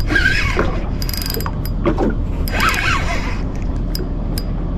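Spinning reel being cranked under load to gain line on a heavy fish, its gears running with a string of irregular clicks and a few short whining glides.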